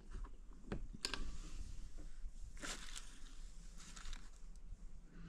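Faint rustling and a few small knocks of a net curtain being pushed aside by hand, with one sharper tap about a second in and a brief hissing rustle a little past halfway.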